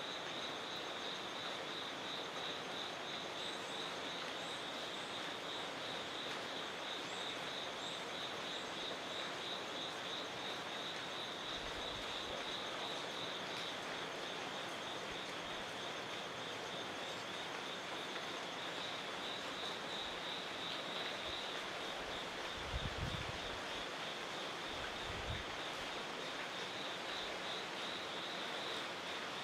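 Insect chorus trilling in a steady, evenly pulsing high tone over a background hiss, with a few dull low thumps about two-thirds of the way through.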